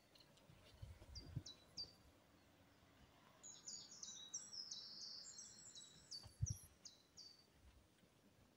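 A songbird singing faintly: a few short high notes, then a longer run of quick high notes in the middle. There are a couple of low thumps, the louder one near the end of the song.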